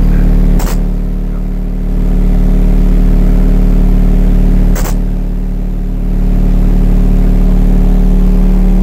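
Two 19-inch subwoofers in a Rockford-equipped truck playing a very loud, steady deep bass tone for a sound-pressure metering run. The tone swells and dips slightly twice, with two brief clicks.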